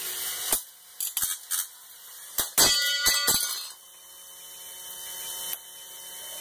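Spinning drum weapon of a 3D-printed antweight combat robot striking a sheet-metal wedge: a string of sharp knocks and clanks with a metallic ring, the heaviest a little under halfway through. The high whine of its belt-driven brushless weapon motor runs underneath.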